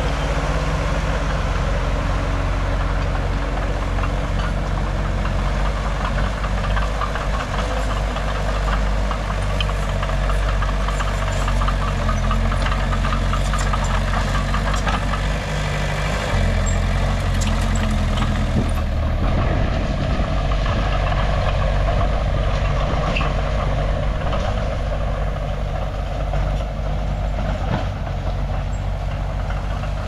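Diesel engine of a tracked hydraulic excavator running steadily while it digs, with short metallic knocks and clanks over the engine. The engine note shifts about halfway through.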